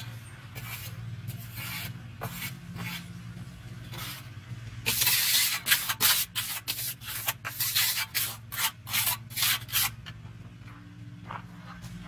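Steel trowel scraping across a wet cement slab in quick finishing strokes, about two or three a second. Light at first, the strokes grow much louder about five seconds in and stop about ten seconds in.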